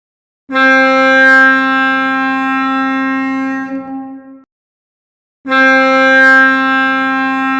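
Ship horn giving two long blasts at a steady pitch, about a second apart.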